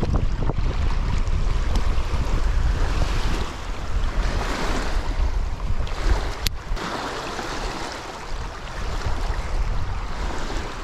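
Wind buffeting the microphone with a heavy low rumble that eases after a few seconds, over small lake waves washing against the shore, swelling and fading every couple of seconds. A single sharp click about six and a half seconds in.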